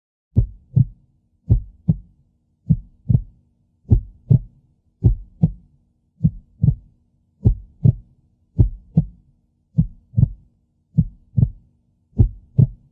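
A slow, steady heartbeat: paired lub-dub thumps, about fifty a minute, over a faint steady hum.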